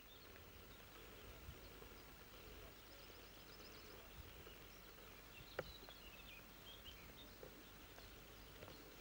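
Near silence: faint outdoor ambience with a few faint, scattered bird chirps, and one sharp click a little past halfway.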